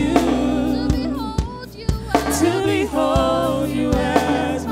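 Live gospel worship music: singers over sustained keyboard and bass notes, with drum hits.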